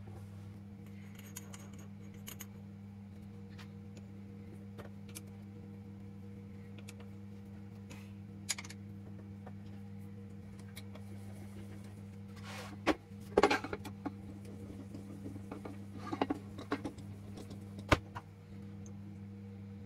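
A steady low electrical hum with scattered light clicks and metallic knocks from handling objects on a workbench. The knocks come in small clusters, the loudest about two-thirds of the way through and again near the end.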